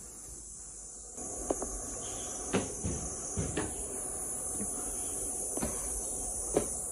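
Footsteps on stone, five or six irregular knocks about a second apart, over a steady high hiss that grows louder about a second in.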